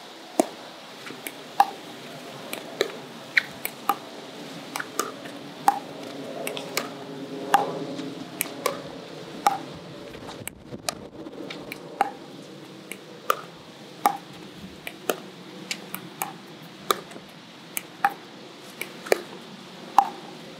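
Pickleball dink rally: composite paddles tapping a plastic pickleball back and forth, each soft hit answered by the ball's bounce on the hard court. The result is a steady string of short, sharp taps, about one every half second.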